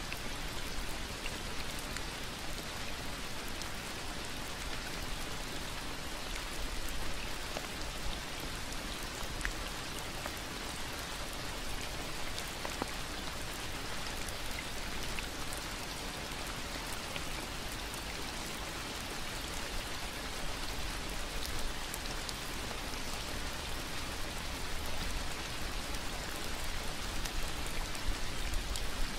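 Steady rain falling: an even hiss of rainfall with many small, scattered individual drop hits.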